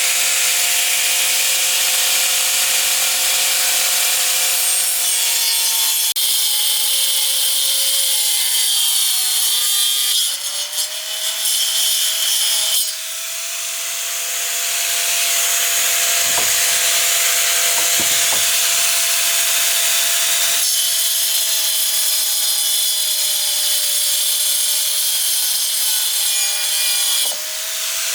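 Power saw cutting wood: a steady motor whine with the hiss of the blade through timber. The motor's pitch sags briefly under load about nine seconds in, and the sound changes abruptly several times.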